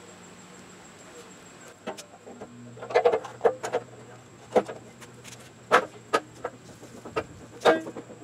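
Sharp metal knocks and clunks, about ten in all, bunched in the middle and then spaced a second or so apart, as the front bumper reinforcement bar of a Nissan 240SX is handled and fitted against the car's front end.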